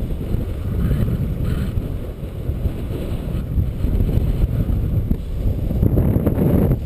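Strong gusting wind buffeting the action camera's microphone: a loud low rumble that rises and falls.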